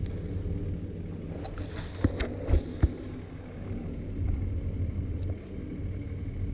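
Steady low outdoor rumble of wind on the microphone, with a few sharp knocks about two to three seconds in.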